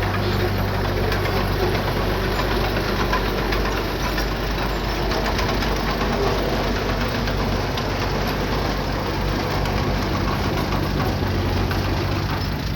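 Diesel engine of heavy earthmoving equipment running steadily with a knocking rumble. Its note shifts about ten seconds in.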